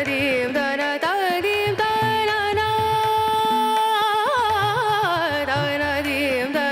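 Background music: a melody of long held notes that bend and waver, over a steady accompaniment.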